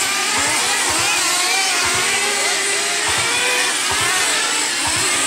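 Several 1/10-scale electric dirt oval RC race cars running together, their motors whining in many overlapping pitches that keep rising and falling as the cars accelerate and back off.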